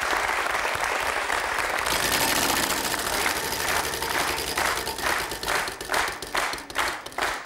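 Studio audience applauding a correct letter call on the game-show puzzle board. From about halfway through, the sound breaks into regular strokes about three a second.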